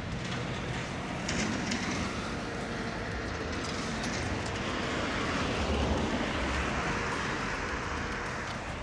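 Steady vehicle and road noise: an even rushing sound with no distinct engine note, swelling slightly about two-thirds of the way through.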